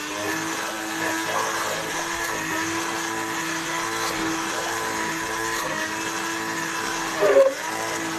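Electric blender running steadily, puréeing a cooked onion soup with cheese. Near the end it briefly gets louder and its pitch dips before settling back.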